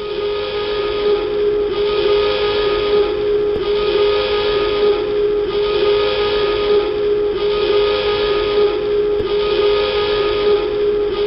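Submarine dive alarm sounding: a steady buzzing horn tone with a brighter, harsher layer that pulses on and off about every one and a half seconds. It fades up over the first second.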